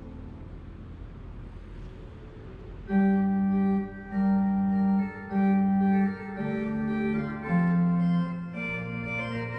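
Organ music from the Anker Clock (Ankeruhr) in Vienna. After a lull of about three seconds with only a low hum, it goes on with a slow melody of held organ notes.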